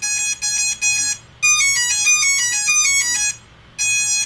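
Brushless motors of a three-inch quad beeping for a Cicada 30A ESC during throttle calibration. It plays a string of identical beeps about twice a second, then, about 1.4 seconds in, a quick run of stepped notes going up and down, and a single beep near the end.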